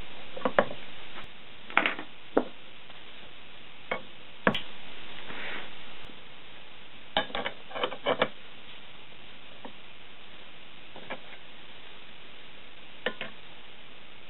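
Scattered light clicks and knocks of metal tools being handled and set down as angle iron, a steel rule and a machinist's square are placed against the tailstock's setover ways, with a quick cluster of several taps about halfway through, over a steady hiss.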